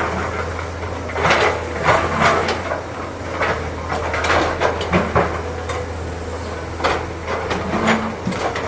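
Excavator working: its diesel engine runs with a steady low drone while irregular clanks and knocks come from the machine and its bucket.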